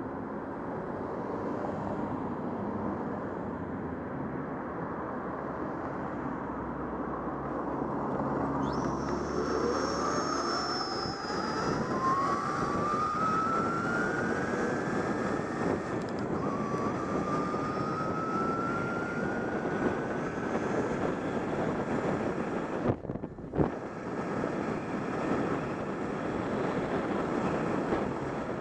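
Electric bike's motor whining as it pulls away from a stop, the pitch rising steadily with speed, dropping back and rising again, over heavy wind rush on the helmet microphone. A couple of sharp knocks about two-thirds of the way through.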